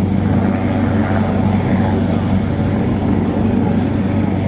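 Cessna 172M Skyhawk's four-cylinder Lycoming O-320 piston engine running steadily on the ground during pre-takeoff checks and taxiing, with an even, unbroken drone.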